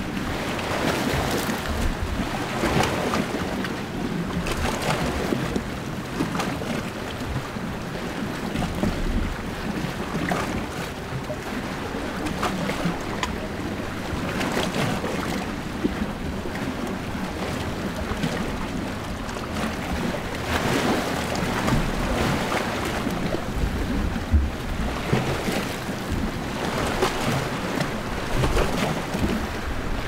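Small sea waves washing and lapping against rocks at the water's edge: a steady wash that swells into a surge every few seconds at uneven intervals.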